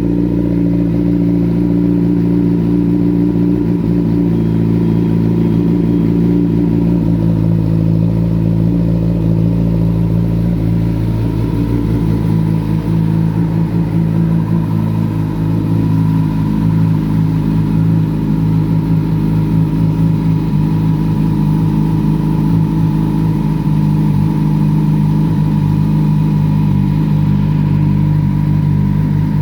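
Kawasaki ZX-10R inline-four engine idling steadily while it warms up.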